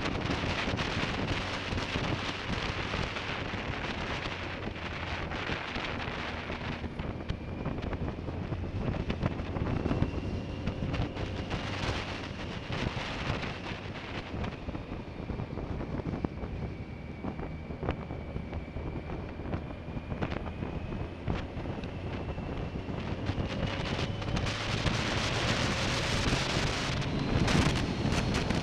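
Wind rushing over an action camera's microphone on a moving 2005 BMW K1200S, with the bike's inline-four engine running steadily underneath and faint whining tones that rise and fall with its speed. The wind grows louder near the end.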